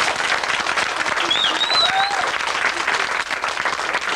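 Audience applauding, a dense steady patter of clapping hands, with a brief high squeal over it about a second and a half in.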